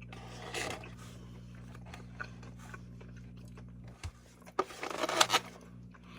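Eating sounds: a short crunch or scrape about half a second in, then a louder cluster of crunching and scraping around five seconds in, likely from biting into the crunchy chicken and working the takeout container. Under it runs a steady low hum that drops away about four seconds in.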